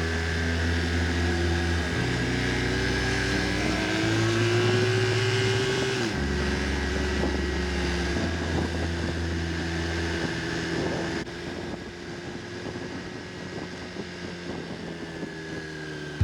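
Music with a deep bass line stepping to a new note about every two seconds, over the steady hum of a car driving. After about eleven seconds the music drops away, leaving quieter road and engine noise.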